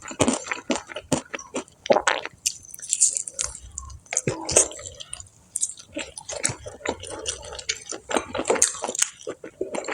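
A person chewing and biting fried chicken and crispy fried snacks close to the microphone, with many irregular sharp crunches and clicks.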